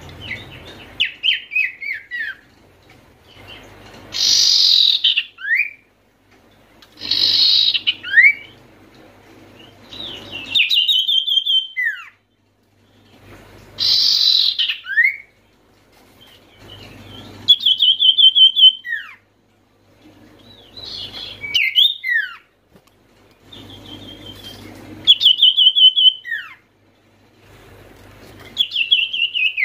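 Common iora (sirtu/cipoh) singing in full voice: about nine repeated phrases, a few seconds apart, each a rapid high trill ending in a sharp falling whistle.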